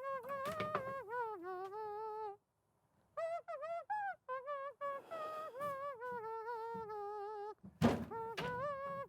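A high-pitched voice humming a wordless tune in short gliding phrases, with a break of under a second partway through. Two thunks land close together near the end.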